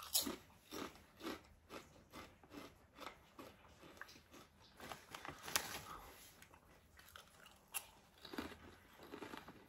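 Someone biting into and chewing wasabi mayonnaise kettle-cooked potato chips, quiet crisp crunches about twice a second.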